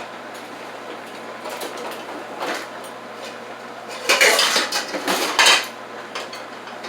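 Pots and pans clattering against each other as cookware is handled, with the loudest clatter about four and five seconds in.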